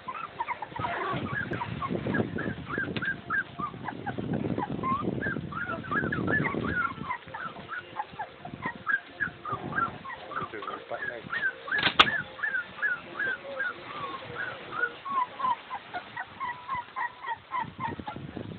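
Three-week-old boxer–Labrador cross puppies squeaking and whimpering: many short, high cries, several a second and overlapping. Under them, paws scrabble on a plastic mat, and there is a single sharp click partway through.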